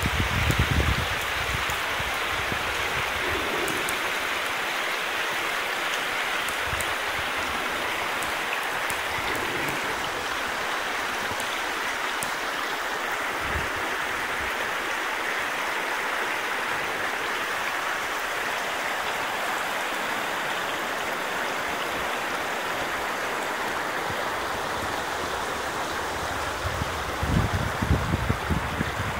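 Shallow, fast river water rushing and splashing over rounded cobbles and rocks in a steady rush. Brief low rumbles come near the start and again near the end.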